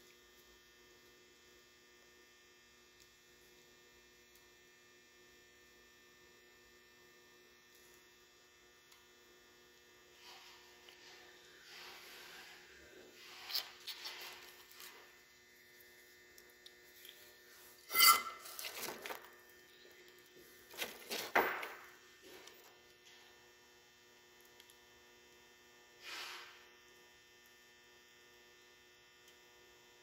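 Steady faint electrical hum, joined from about ten seconds in by light rustling and a few sharp knocks as hands handle a wiring harness and tools on a wooden workbench; the loudest knock comes a little past halfway.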